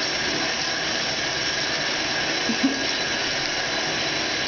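Bathtub tap running steadily into the tub, an even rushing hiss. A short low sound from the baby comes about two and a half seconds in.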